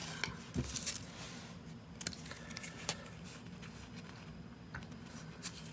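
Pokémon trading cards being handled and flipped through by hand: soft clicks and rustling of card stock sliding against card stock, with one low thump just over half a second in, over a faint steady low hum.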